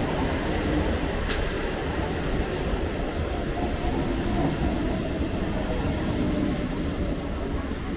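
An Indian Railways electric local train (EMU) running past at speed: a steady, loud rumble of the coaches and their wheels on the rails, with a sharp click about a second in.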